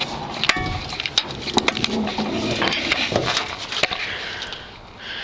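Irregular knocks, clicks and scrapes of something being handled, with a short squeak about half a second in.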